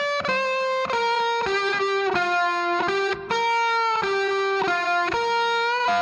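Background music: a guitar melody of held, sustained notes that changes pitch about twice a second, with a brief break a little past three seconds.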